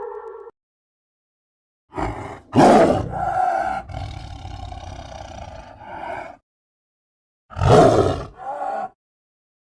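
Two creature roar sound effects separated by silence: a longer one of about four seconds that is loudest near its start, then a shorter one of about a second and a half near the end. A falling siren-like tone fades out just before them.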